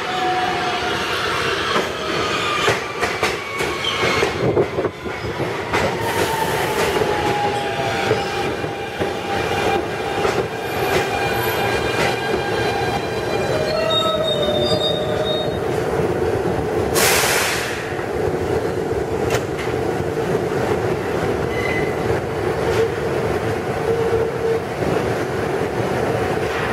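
Siemens-propulsion R160B subway train pulling into the station and braking to a stop: the traction motors whine down in pitch over the first ten seconds above a steady rumble of wheels on rails. A short hiss comes about 17 seconds in.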